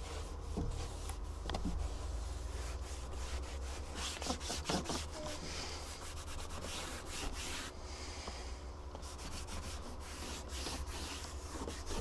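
A rag wiping the truck's window frame with alcohol, rubbing and scratching in short strokes: degreasing the surface before gluing on the screen mounts. A steady low hum runs underneath.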